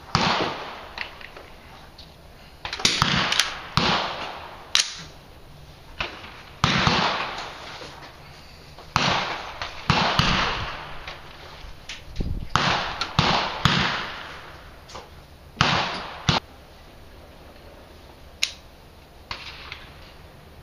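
Rifle shots on a shooting range, a dozen or more at irregular intervals, some in quick pairs, each with a short echoing tail.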